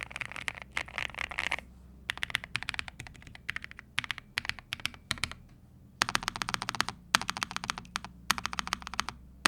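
Typing on a NuPhy Nos75 low-profile aluminum keyboard in its stock build, with Gateron N1 Nano linear switches and low-profile PBT keycaps. Fast runs of key clacks come in bursts with short pauses between them.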